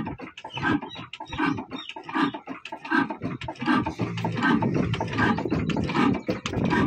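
Old Hornsby-type diesel oil engine running slowly, its exhaust chugging in a steady beat about every three-quarters of a second, with light mechanical clatter between the beats.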